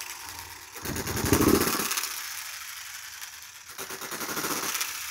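Model hit-and-miss engine with freshly lapped valves, running: a fast, even ticking as it coasts, broken twice by a short louder burst of firing, about a second in and again near four seconds.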